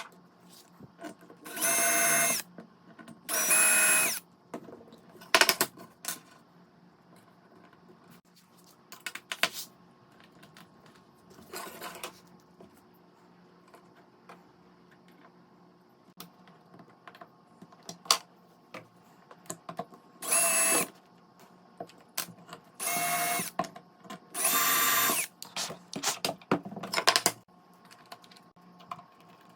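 A small electric power tool motor runs in short bursts of about a second, about seven times, with scattered clicks and knocks between them.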